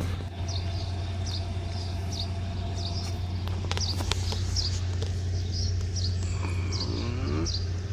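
Short high chirps repeating about twice a second over a steady low hum, with a short cry rising in pitch near the end.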